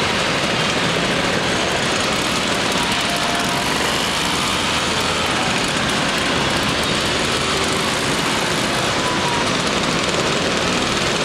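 Many classic two-stroke scooter engines, Vespas and Lambrettas, running together as a large pack of scooters rides off slowly. The result is a steady, dense din.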